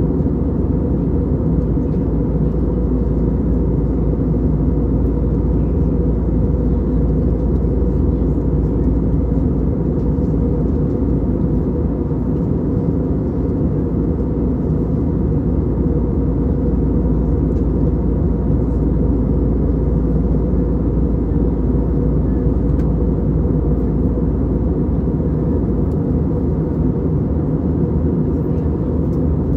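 Cabin noise of an Airbus A320neo airliner in flight, heard from a window seat: a steady deep rumble of airflow and its CFM LEAP-1A engines, with a faint steady hum on top, unchanging throughout.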